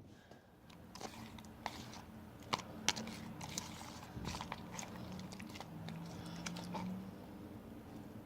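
Borax slime being mixed in a bowl: soft, sticky squelches and small irregular clicks as the gooey mixture is worked.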